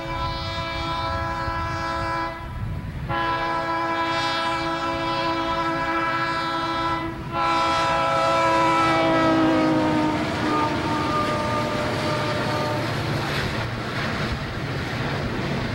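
Conrail diesel locomotive's multi-note air horn sounding three long blasts. The third drops in pitch as the locomotive passes close by, then gives way to the steady rumble and clatter of the locomotives and freight cars rolling past.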